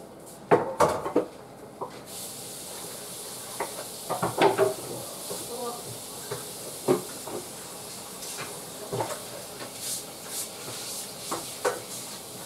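Minced beef frying in a pan: a steady sizzling hiss sets in about two seconds in, with repeated clatter and knocks of a utensil against the pan.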